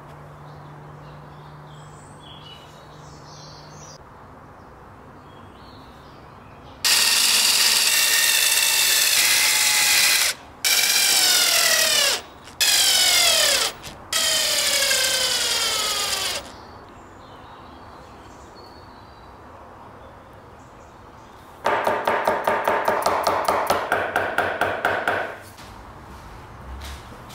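Electric drill-driver driving screws into wood in four runs of a few seconds each, its motor pitch falling through each run as the screw bites. Later comes a run of about three seconds of rapid ratcheting clicks, about four a second, with the motor still running.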